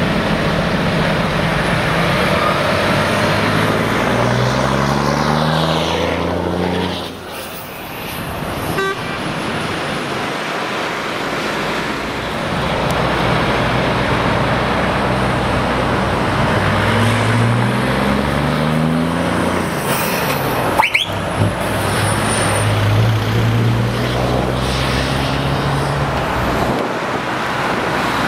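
Heavy truck diesel engine through an open exhaust pipe, accelerating with its note rising twice and then running steadily, over road traffic noise.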